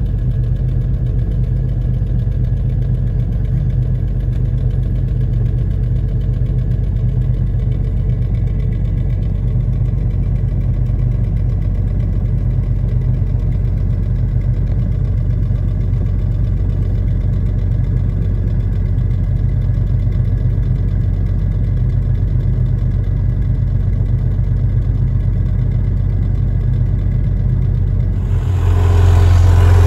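Jeep Cherokee 4.0-litre straight-six idling steadily after a cold start, heard from the cabin. It has a knock-like tick that the owner believes is a leaking exhaust manifold gasket, along with the exhaust rattling. Near the end the sound becomes louder and deeper.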